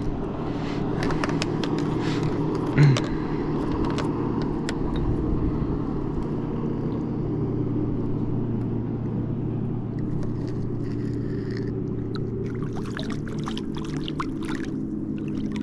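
Steady low hum of an engine running nearby. From about twelve seconds in, light clicks and scrapes as a crappie is threaded onto a rope stringer alongside a kayak.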